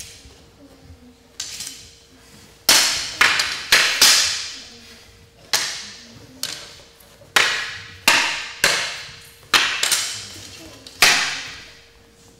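A long wooden staff and a sword clashing in a sparring exchange: about ten sharp clacks, singly and in quick pairs, each echoing as it fades.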